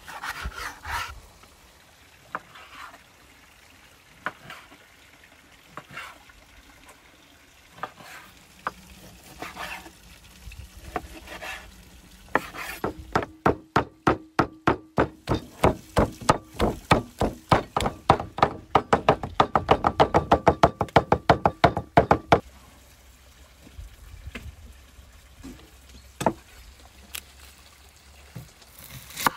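Large kitchen knife cutting raw meat: a few scattered soft cuts and scrapes, then, about halfway through, some ten seconds of rapid chopping on a wooden tree-stump block, sharp knocks about five a second, as the meat is minced.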